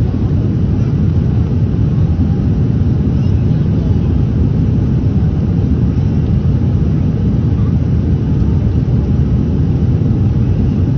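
Jet airliner in flight heard from inside the passenger cabin: a steady low rumble of engines and airflow, unchanging throughout.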